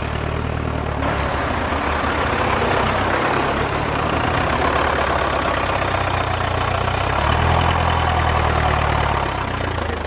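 Diesel tractor engine running steadily, its low note changing a few times.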